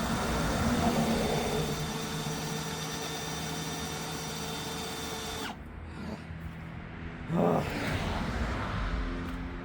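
Electric drill running as it drills a hole, its steady whine cutting off abruptly about five and a half seconds in. A short knock follows about two seconds later.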